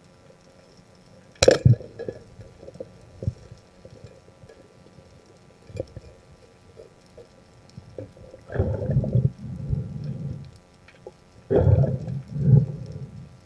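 Muffled underwater noise from a diver's camera on a night dive: a sharp click about a second and a half in, scattered small knocks, then two bursts of low rumbling and knocking in the second half.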